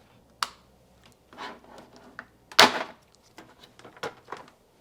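Hands handling an LED light panel and its fittings: scattered plastic clicks and knocks, with one louder knock a little past halfway.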